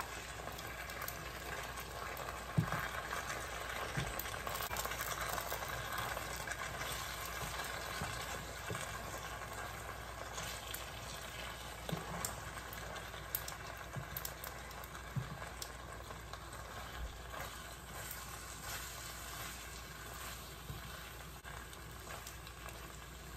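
Penne in cream sauce sizzling in a frying pan while being stirred with a plastic spoon, with occasional light knocks of the spoon against the pan. The sizzle slowly dies down, the burner having just been switched off.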